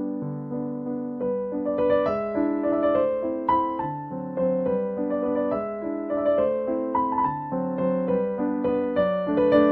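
Background piano music: a melody of single notes over a lower accompaniment, moving at an even pace.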